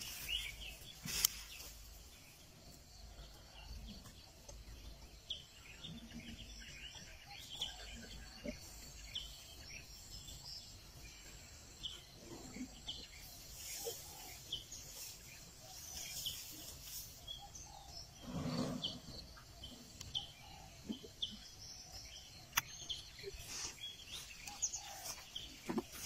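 Scattered bird chirps and calls over faint outdoor background noise, with one short, louder low sound about two-thirds of the way through.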